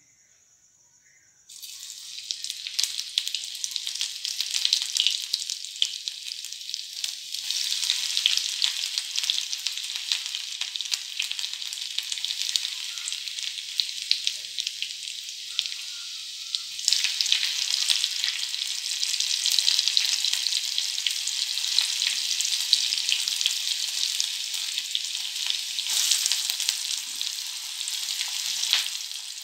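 Chopped ginger, garlic and green chilli sizzling and crackling in hot oil in a steel kadhai. The sizzle starts suddenly about a second and a half in and gets louder a little past halfway. Near the end, chopped onion goes into the oil.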